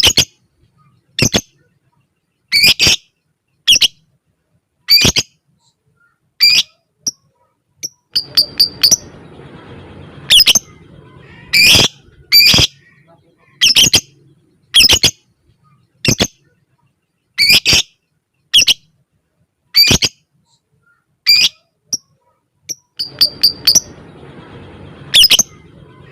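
Lovebird giving short, sharp, high-pitched calls about once a second, with a few quick runs of calls in between, over a faint hiss.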